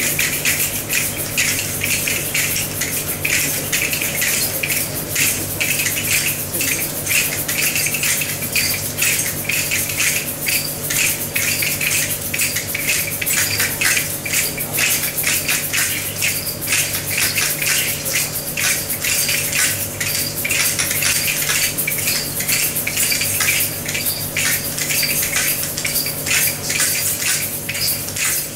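A group of people playing small hand percussion together in a free improvisation: shakers, clappers and small metal percussion rattling and clicking in a dense, continuous clatter.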